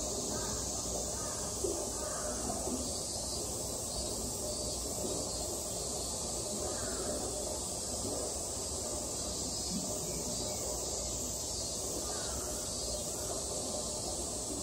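Cicadas droning steadily in a high, unbroken chorus, over a low murmur of visitors' voices.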